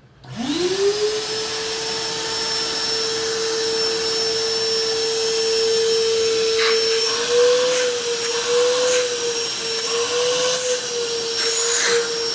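Fujihamma 25-litre stainless-steel canister wet/dry vacuum cleaner switched on, its motor spinning up within about a second to a steady whine over a rushing hiss. In the second half the pitch wavers slightly, and there are a few light knocks.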